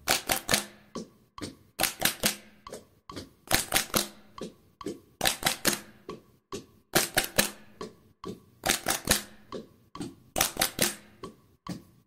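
Children's hands clapping in a rhythmic body-percussion pattern: short groups of two to four quick claps repeated in a steady beat.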